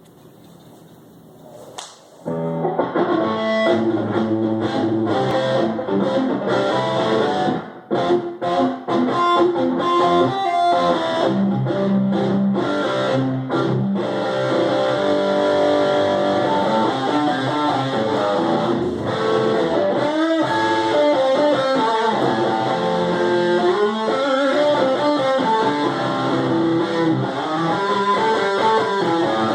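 Guitar playing a song, picked notes and chords with a few sliding notes. It starts about two seconds in and breaks off briefly several times around eight to eleven seconds in.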